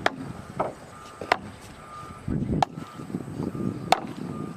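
Five sharp, irregular knocks over a low rumble, with a faint high beeping that comes and goes in short spells.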